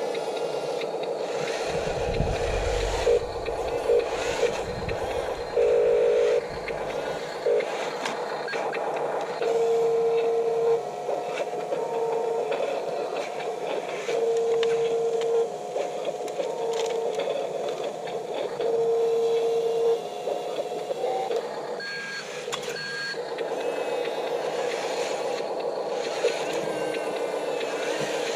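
Radio-controlled construction vehicles' small electric motors whining steadily, with several held electronic beeps, some a second or more long, sounding over the whine.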